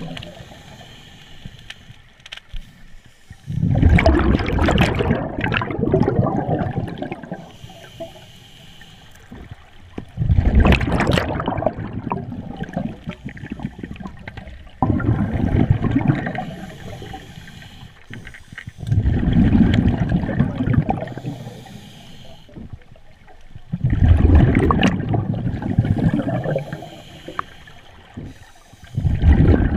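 Scuba diver breathing on a regulator underwater: each exhalation releases a loud gurgling rush of bubbles lasting two to three seconds, about every five seconds, with quieter inhalations between.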